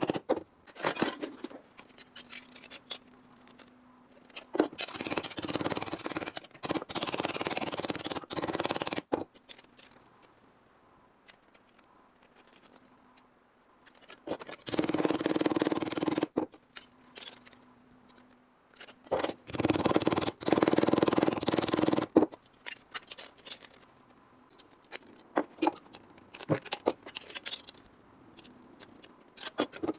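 Sheet-metal body panel being cut by hand with snips: irregular spells of crunching, scraping cuts a few seconds long, broken by sharp clicks and short pauses.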